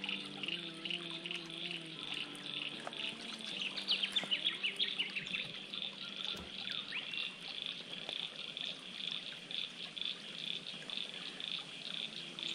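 Bush creek ambience: a steady chorus of small creatures chirping in a regular pulse, about three times a second. A burst of bird chirps comes about four seconds in, over the soft trickle of a shallow rocky creek.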